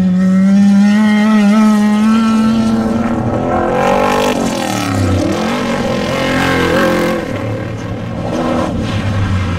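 Off-road desert race vehicle engines running hard, with the pitch falling as one passes about four seconds in.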